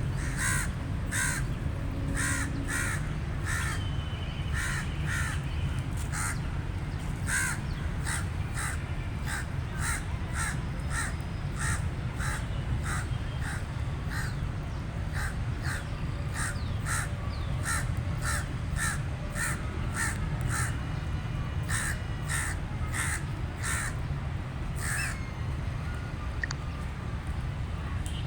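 Crow calling in a long series of short, evenly spaced caws, about two a second, over a steady low rumble.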